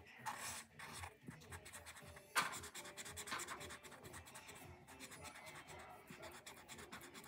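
Faint, quick strokes of a colouring tool scratching on paper as a shape is drawn and coloured in, with one sharper stroke a couple of seconds in.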